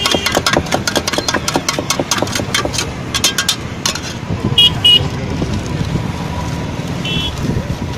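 Rapid clinking of masala being stirred in a steel tumbler for the first few seconds, over steady road traffic. A vehicle horn toots twice about halfway through and once more near the end.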